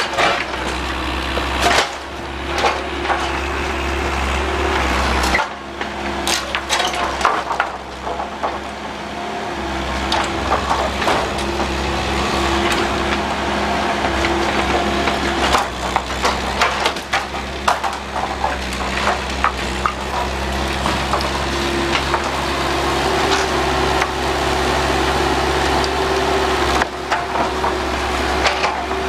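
Bobcat 331 compact excavator's engine running steadily under hydraulic load while wooden wall framing is torn down, the studs and boards cracking, splintering and crunching in many sharp breaks.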